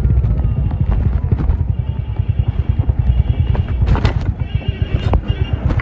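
Royal Enfield Hunter 350's single-cylinder 349 cc engine and exhaust running at low speed, a rapid, even thumping pulse. From about two seconds in, a steady high tone sounds over it, with a couple of short sharp clicks near the end.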